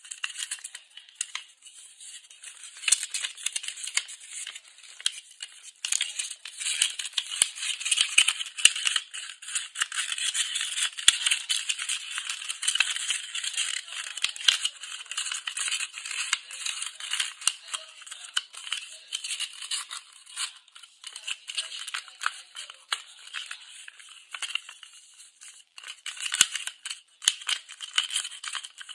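A sheet of paper being handled and folded by hand: a dense run of rustling and crisp crinkling crackles as the paper is bent and the creases are pressed.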